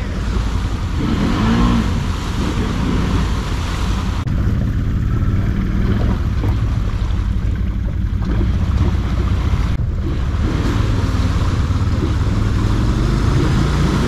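ATV engines running with a low, steady drone, one of the quads stuck in a deep mud hole.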